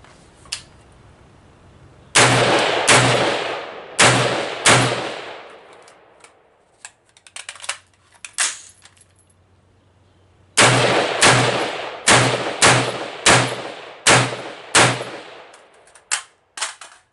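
Black Rain Ordnance AR-15 rifle firing four shots in quick succession. Then comes a run of small metallic clicks and rattles from a fast magazine change, followed by seven more shots at a steady pace and a few light clicks near the end.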